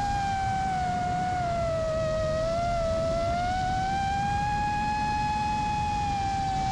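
iFlight Chimera 5 FPV quadcopter's motors and propellers whining in flight. The pitch drifts gently up and down with the throttle, over a low rumble of wind.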